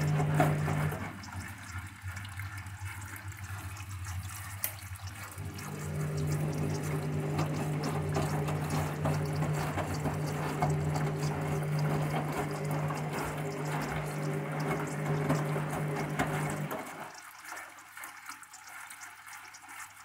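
Candy front-loading washing machine on its final rinse, the wet load tumbling and water sloshing and splashing in the drum. Under the water noise the drum motor hums steadily; the hum stops for about four seconds soon after the start, runs again for about eleven seconds, and stops again near the end, as the drum pauses between turns.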